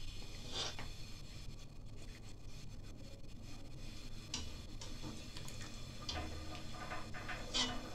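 A wire mesh skimmer scraping against the pot and dipping into the cooking water as boiled ashak dumplings are scooped out. There are a few short scrapes, the clearest about half a second in, midway, and near the end.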